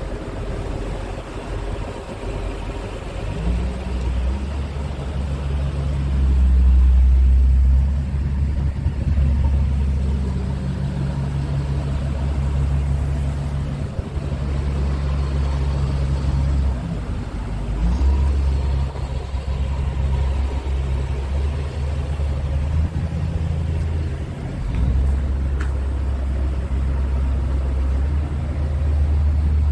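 Scania R 144 G's 14-litre V8 diesel engine idling: a steady low rumble that swells and eases a few times.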